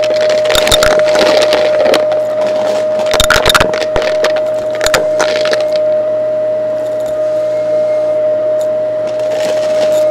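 Shark upright vacuum running with a steady whine while sucking up coins from a shag rug; the coins clink and rattle through the nozzle in quick clusters, thickest in the first few seconds, thinning out around the middle and picking up again near the end.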